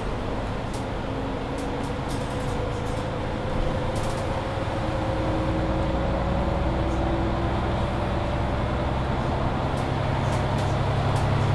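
Mercedes-Benz Citaro C2 hybrid city bus accelerating: a whine from the drivetrain rises slowly in pitch over the deep hum of the engine, with faint scattered rattles.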